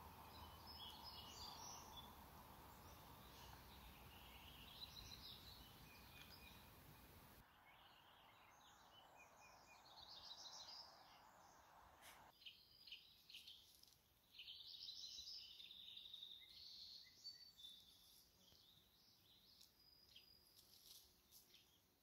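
Faint chirps and short songs of small birds, scattered throughout, over a soft hiss that cuts out about a third of the way in and again just past halfway.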